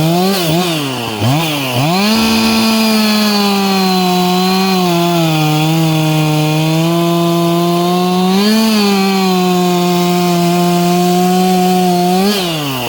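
Two-stroke chainsaw at full throttle cutting wood with a hard-chrome chain. Its pitch dips and recovers several times in the first two seconds, then holds steady with a brief rise about two-thirds of the way through, and drops off near the end as the throttle is let go.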